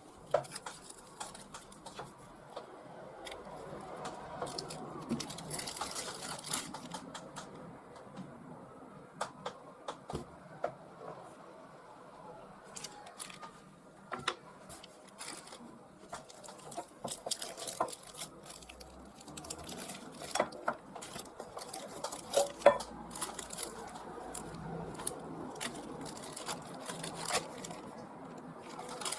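Small objects being handled at close range: scattered clicks, taps and rustling at an irregular pace, the sharpest tap about two thirds of the way through.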